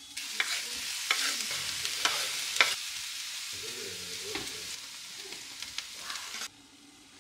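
Food sizzling in a hot frying pan as it is stir-fried, with several sharp taps and clicks over the hiss. The sizzle cuts off abruptly near the end.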